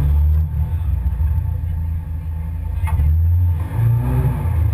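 Pinzgauer off-road vehicle's engine and drivetrain running under way, heard from the open rear bed as a low rumble that dips and swells. A single sharp knock sounds about three seconds in.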